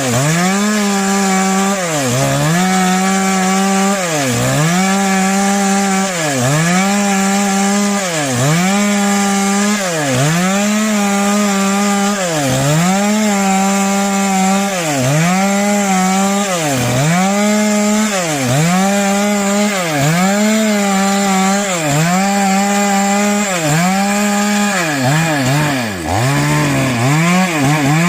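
Small petrol engine of a garden power tool running at high revs, its pitch dipping briefly and recovering about every two seconds as it takes load and frees up.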